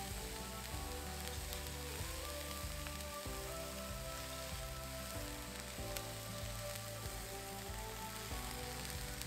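Steady light sizzling from a frying pan of Hiroshima-style okonomiyaki, whose batter base is frying under a heap of shredded cabbage and bean sprouts. Background music with slow held notes plays along with it.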